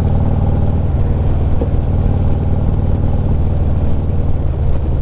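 Harley-Davidson Street Glide's V-twin engine running steadily at cruising speed, a low, even rumble, with wind rushing past.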